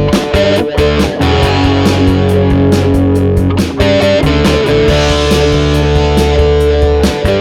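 Background rock music with distorted electric guitar over a steady drum beat.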